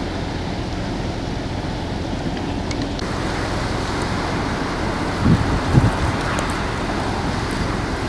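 Strong blizzard wind blowing steadily through snow-covered trees, with two brief low buffets of wind on the microphone about five and a half seconds in.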